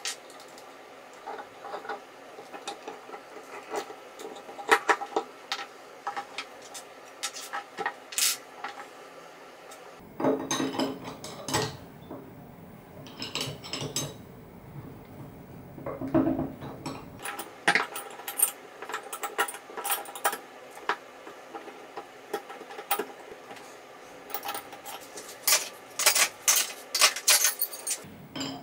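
Metal hand tools and small metal parts clicking and clinking as a stepper motor is unbolted from a 4th-axis rotary unit's aluminium bracket with hex keys and a wrench. There are two longer stretches of rattling and scraping, about ten and about sixteen seconds in.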